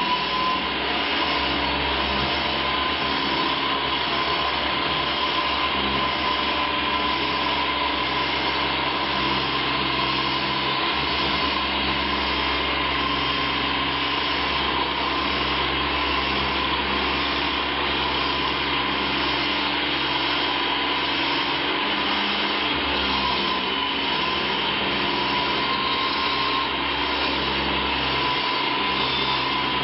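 Electric wall chaser cutting a chase in a masonry wall, its motor running steadily under load with a high whine, a vacuum extracting the dust.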